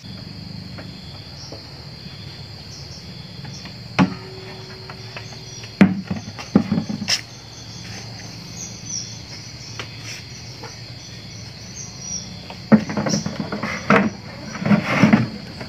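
Steady high-pitched insect drone, with a few knocks and clatters of gear being handled; the loudest run of clatter comes near the end, as a small pump and hose are packed into a plastic bucket.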